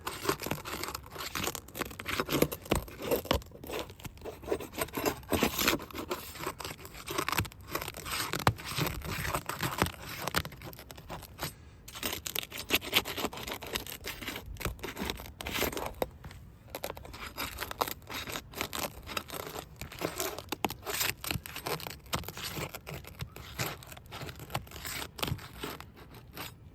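Roof shingles being worked loose by hand: continuous irregular scraping and tearing.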